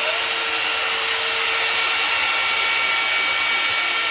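CNC router spindle running and cutting a wooden flywheel pattern: a steady whine over a hiss.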